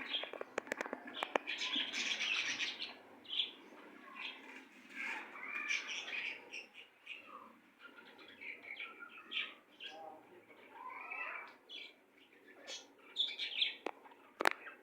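Several small pet birds chirping and twittering together in overlapping short calls and gliding notes, with a few sharp clicks now and then, the loudest near the end.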